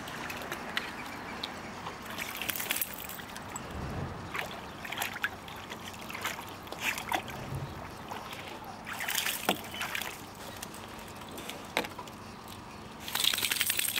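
A puppy splashing and sloshing about in a plastic kiddie pool, with water dripping and trickling off a toy she lifts out in her mouth. The splashes come irregularly, the loudest one about a second before the end.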